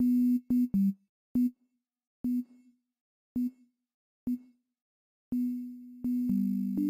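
Sine-wave synth bass from a ReFX Nexus 2 'BA Basic Sine' preset run through a degrader effect, played as a string of short, clipped notes, each starting with a click and carrying a faint buzzy top. In the last second and a half the notes are held longer and overlap at two pitches.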